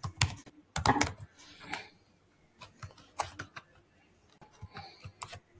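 Typing on a computer keyboard: irregular key clicks in short runs, with brief pauses between them.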